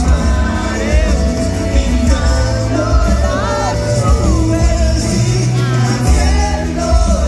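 Live pop music with heavy bass and a male lead vocal sung into a microphone, heard from the audience in a concert hall.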